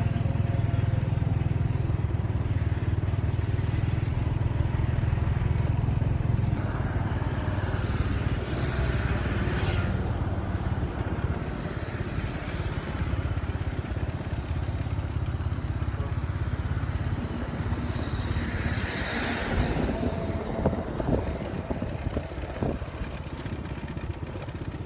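Motor scooter engine running under the camera: a steady low hum for about the first six seconds, then a rougher rumble mixed with road and wind noise. Twice, other vehicles pass, swelling up and fading.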